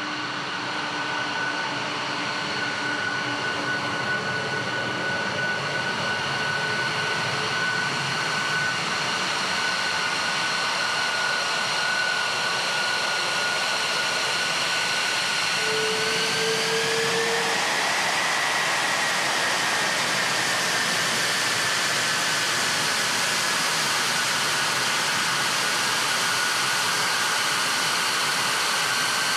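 Lockheed Martin F-22 Raptor's twin Pratt & Whitney F119 turbofan engines running at taxi power: a steady rushing hiss with a high whine that rises in pitch about sixteen seconds in, then slowly eases back down.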